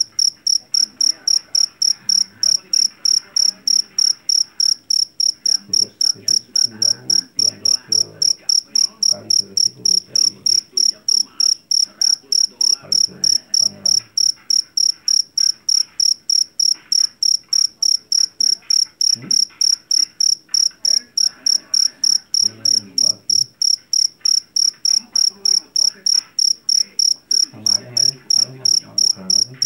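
Jeliteng field cricket calling: loud, high, evenly spaced chirps, about three a second, without a break.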